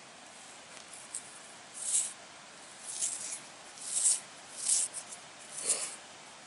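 Five short scratchy rustles about a second apart: hands rubbing and handling a freshly dug penny and the dirt around it.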